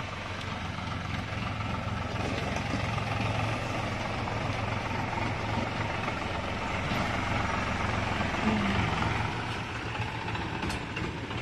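New Holland 4710 tractor's diesel engine running steadily with an even low hum while hauling a trolley loaded with soil.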